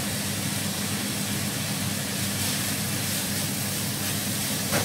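Electric cooktop running under a frying pan with a steady hiss and a low electrical hum, with one short knock of the spatula against the pan near the end.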